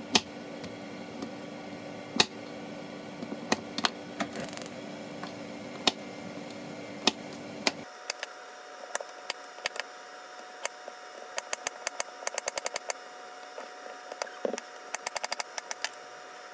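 Kitchen knife slicing a Korean zucchini on a plastic cutting board: sharp taps of the blade striking the board, spaced apart at first, then in quick runs of several taps a second later on.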